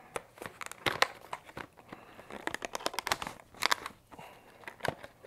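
A card reader's small retail box and its packaging being handled and opened: crinkling and crackling of cardboard and plastic, with several sharp clicks and snaps.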